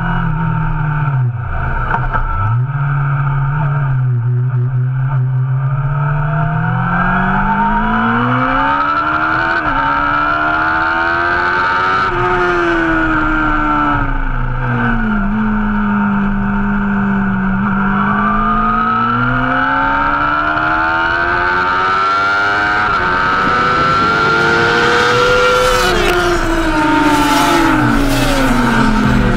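Loud motorcycle engine with an aftermarket exhaust, revving up and down. Its pitch climbs and falls slowly over several seconds at a time and peaks highest near the end, with a steadier lower engine note running underneath in the first half.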